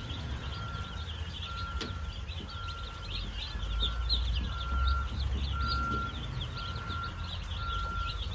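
A brooder full of Cornish Cross chicks peeping nonstop, a dense chorus of high, overlapping peeps. A steady beep repeats about once a second throughout, over a low rumble that swells in the middle.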